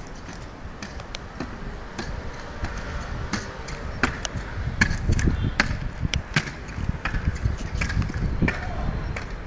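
Skyrunner jumping stilts striking paving stones as the wearer bounds along: an uneven run of sharp knocks, a few a second, over a low rumble.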